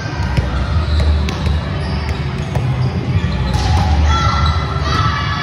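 Volleyball play echoing in a large indoor gym: scattered sharp thumps of balls being hit and bouncing on the hardwood, with faint voices over a steady low hum.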